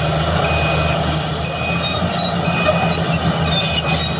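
Diesel engine of a BEML BD355 crawler bulldozer running steadily, with a reversing alarm beeping about once a second.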